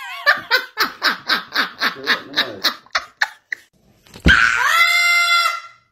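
A woman laughing in a quick run of about four bursts a second. After a cut, a parrot gives one long, steady screech of about a second and a half.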